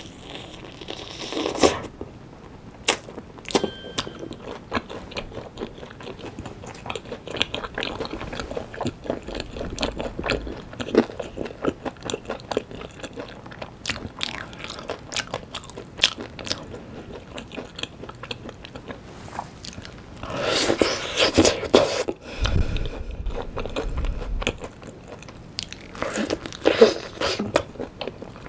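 Close-miked biting and chewing of yangnyeom chicken, Korean fried chicken in a sticky sweet-and-spicy sauce: crunchy bites and wet chewing made of many small sharp clicks. Two louder runs of biting come about twenty seconds in and again near the end.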